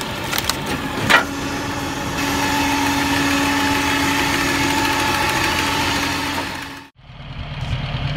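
Firewood-processing machinery running with a steady engine drone, and a sharp crack of a log splitting through an eight-way wedge about a second in. Near the end the sound breaks off abruptly and a tractor engine drives a cone screw splitter.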